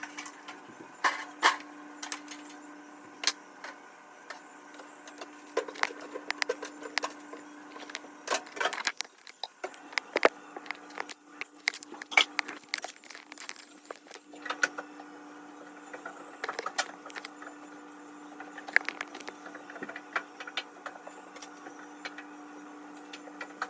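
Household cleaning clatter: irregular knocks, clicks and clinks of objects being handled and set down, over a steady hum.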